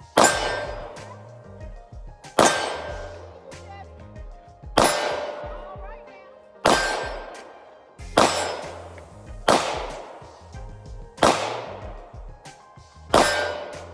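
Gunshots at an indoor range, one every one to two seconds at an uneven pace, each with a long ringing echo. Background music with a steady bass line plays underneath.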